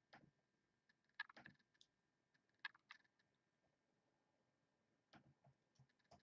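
Faint computer mouse and keyboard clicks in small groups every second or so, against near silence, as a list of names is selected and copied in a spreadsheet.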